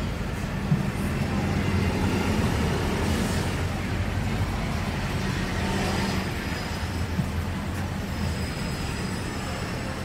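Busy city street ambience: steady traffic noise with a large vehicle engine idling low, amid the bustle of a pedestrian crowd. Two sharp knocks stand out, about a second in and again about seven seconds in.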